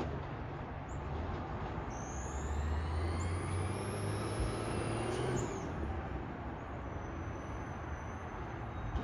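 Automated side-loader garbage truck working at the curb: its diesel engine speeds up for a few seconds to drive the hydraulics as the arm cycles a yard-waste cart, with a whine that rises and then falls, then a clunk as the lift ends and the engine drops back to idle.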